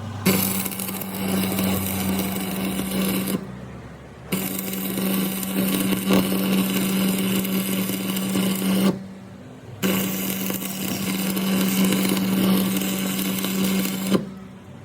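An electric workshop tool run in three bursts of a few seconds each, starting and stopping abruptly, with a steady buzz under a harsh hiss.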